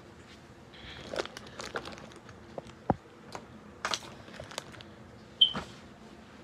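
Handling noise close to the microphone: rustling with scattered clicks and knocks, the loudest knock about five seconds in, as the recording phone is adjusted.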